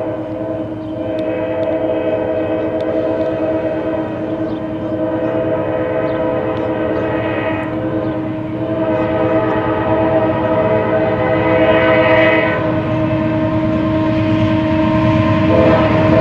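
Nathan K5LA five-chime air horn on a CSX AH44CW diesel locomotive, sounding long, nearly continuous blasts with a few short breaks, over the rumble of the passing freight train, which grows louder toward the end.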